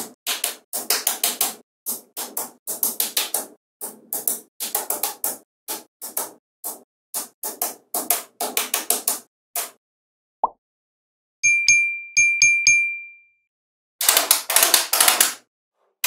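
Small magnetic balls clicking against one another in quick runs of sharp clicks as they snap together, with a pause in the middle and a few short ringing pings a little past halfway.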